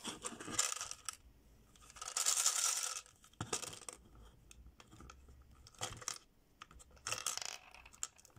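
Miniature plastic Dubble Bubble gumball machine being handled and its turn knob twisted: several bursts of hard plastic clicking and rattling, the loudest about two seconds in.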